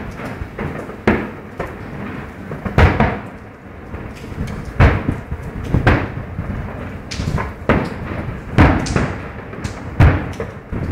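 Aerial fireworks shells bursting in a display: a string of loud booms about every one to two seconds, each followed by a rolling, rumbling echo.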